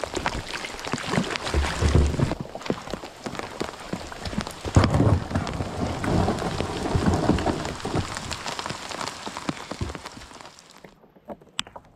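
Heavy rain falling on river water and the kayak, a dense patter of drops, with two low rumbles in the first half. The rain cuts off suddenly near the end.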